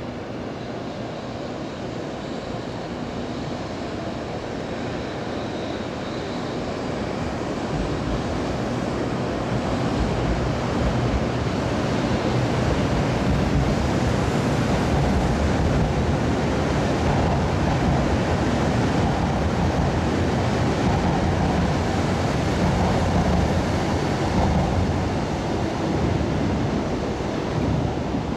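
100 Series Shinkansen train running along the station tracks: a rushing rumble that grows over the first ten seconds or so and then holds steady.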